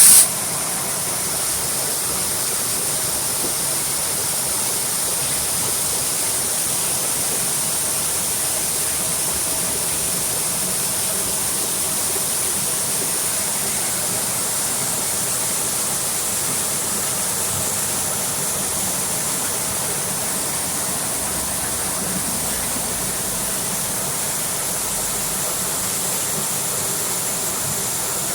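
Steady rushing noise of a concrete batching plant loading a mixer truck, with a faint machine hum underneath, unchanging throughout.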